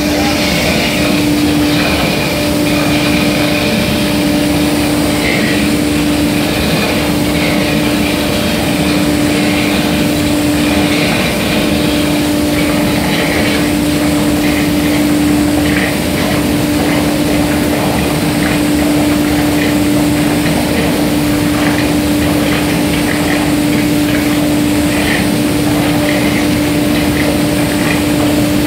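Compressed-air spray gun hissing steadily as it sprays a finish coat onto a wooden tabletop, over a steady machine hum.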